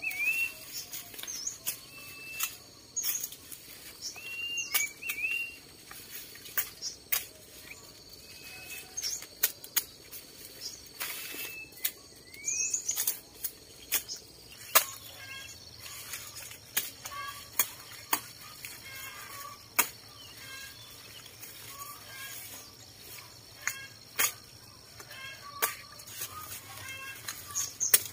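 Dry corn leaves and stalks rustling and crackling in sharp snaps as someone moves through a stand of ripe corn, with small birds chirping short pitch-gliding calls and a steady high whine in the background.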